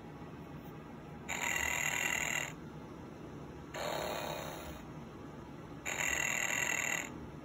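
Snoring Disney Goofy plush toy playing its recorded snore through its small speaker: two snores about a second long, each at a regular interval, with a lower, fading breath in between.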